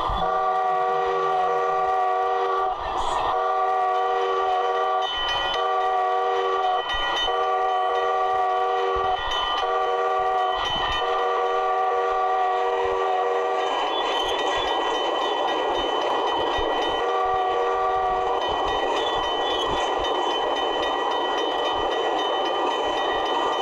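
Multi-note steam train whistle blowing a series of long blasts, each one to two seconds with short breaks between. About halfway through it gives way to a steady rushing hiss, with one more whistle blast a few seconds later.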